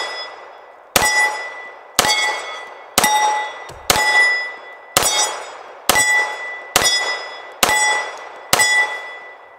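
HK45 .45 ACP pistol fired in slow, steady single shots, about one a second, nine in all, each shot followed by the ring of a hit steel target.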